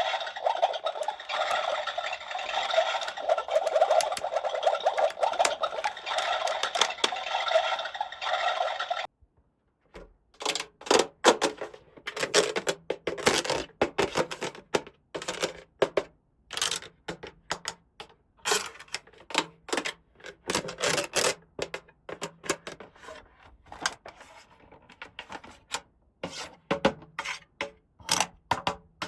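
Dense, continuous crackling of plastic packaging from a miniature toy set being unwrapped, stopping abruptly about nine seconds in. After that come irregular sharp clicks and taps of small plastic toy pieces being handled and set down.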